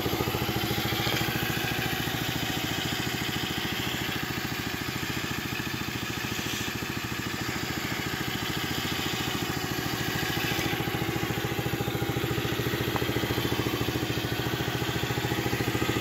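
Single-cylinder four-stroke engine of a brand-new Apollo 125cc automatic kids' ATV idling steadily and quietly.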